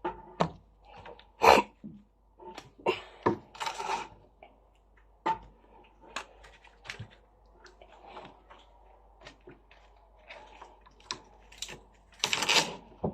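Butcher knife cutting the stems off spinach on a chopping board: irregular knocks of the blade on the board, mixed with rustling of the leaves.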